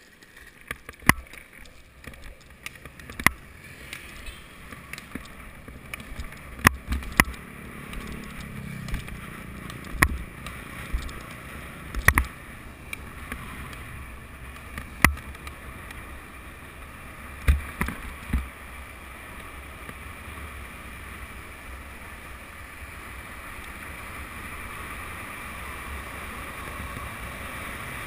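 Downhill longboard wheels rolling on asphalt with wind rushing over the GoPro, growing steadily louder through the second half as the board picks up speed. About nine sharp knocks sound over the first two-thirds.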